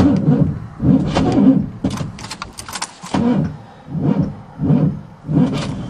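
1977 GMC 400 truck engine being cranked on the starter, turning over in slow, uneven heaves about one to two a second and coughing without catching. The owner puts the hard starting down to ignition timing set too far advanced.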